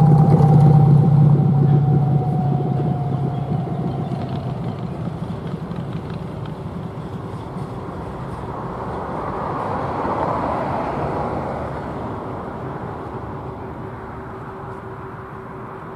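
Empty lignite hopper wagons of an electric-hauled freight train rolling over the rails, a steady rumble fading as the end of the train moves away. A thin whine slides slightly down in pitch during the first few seconds.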